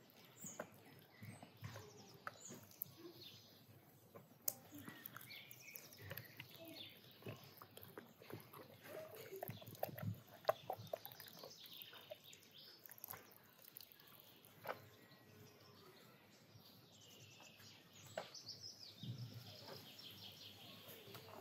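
Soft wet squelches, pats and knocks of hands rubbing marinade into raw whole chickens and moving them on trays, busiest about halfway through, with faint bird chirps behind.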